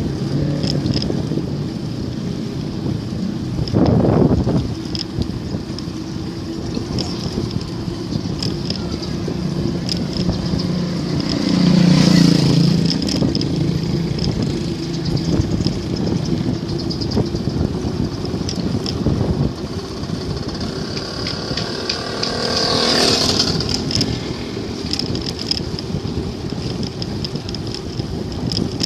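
Wind buffeting the microphone and road noise while riding a bicycle, with motor vehicles passing three times, the loudest pass about halfway through.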